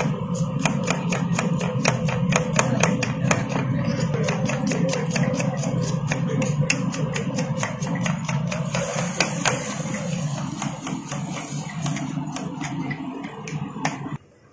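Kitchen knife chopping onions on a wooden cutting board: quick sharp knocks about four a second over a steady low hum, cutting off suddenly near the end.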